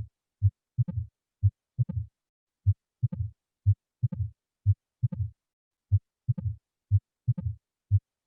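Heart sounds for auscultation practice: a steady rhythm of about one beat a second. Each beat is a short low thump followed by a longer, louder sound with a higher-pitched ring.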